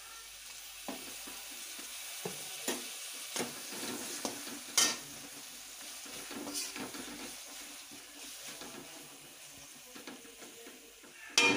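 Freshly added chopped tomatoes and onions sizzling in oil and butter in a metal kadai, a steady hiss, while a spatula stirs them with scattered scrapes and taps against the pan.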